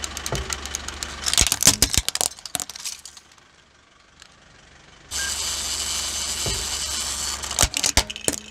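Plastic wind-up toy's clockwork mechanism ticking rapidly, then plastic cracking and snapping as a car tyre crushes it about a second and a half in. After a short quiet pause, a second wind-up toy ticks and whirs, and is crunched under the tyre near the end.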